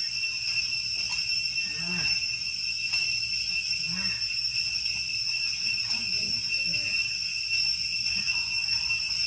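Steady high-pitched drone of forest insects, two constant shrill tones, with a few faint short low sounds about two, four and six seconds in.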